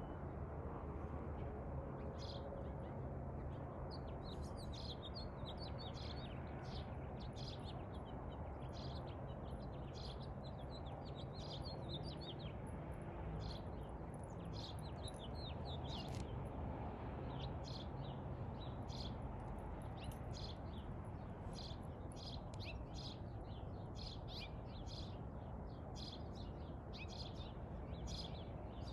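Small songbirds chirping in the background, many short, high chirps coming quickly one after another, over a steady low hum.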